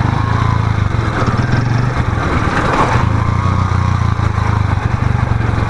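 Motorcycle engine running steadily at low revs while riding, with a constant rush of wind and road noise over it.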